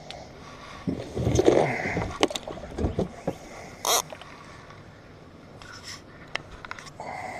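Handling noise as a catfish rod is pulled from its holder in a john boat and the hook is set: a scraping rumble about a second in, then a string of knocks and clicks with one sharp rasp near the middle, and lighter clicks of the baitcasting reel near the end.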